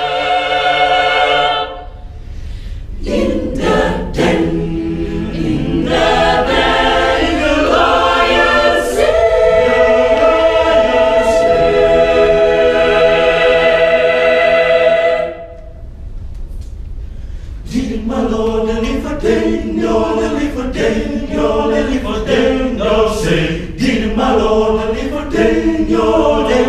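Mixed youth choir singing a cappella: held chords in the first half, a brief drop in level a little past the middle, then rhythmic, accented singing to the end.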